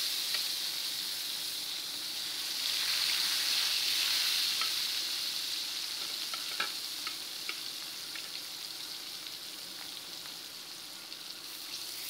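Pieces of katla fish shallow-frying in hot oil in a metal kadai: a steady, high sizzle that grows louder about three seconds in, then slowly fades, with a few sharp ticks near the middle.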